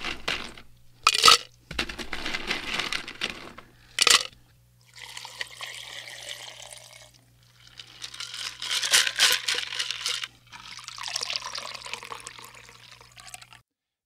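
A drink being poured into a glass in several pours with short pauses between them, and two sharp clinks, about a second in and about four seconds in.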